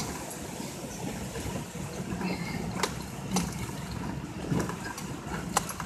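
Off-road vehicle engine running steadily at low speed, with scattered sharp knocks and rattles about three, four and a half, and five and a half seconds in.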